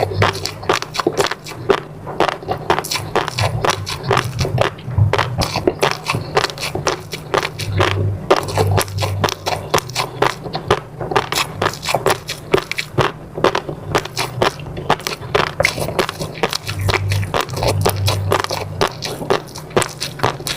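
Close-miked eating: a dense, continuous run of sharp wet clicks, smacks and crackles from chewing food in the mouth.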